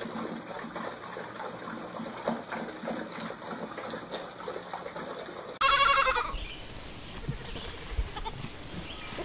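Small soft clicks and chewing noises from a litter of puppies eating together out of one bowl. About six seconds in comes a young goat's loud, quavering bleat lasting about a second, and another bleat starts right at the end.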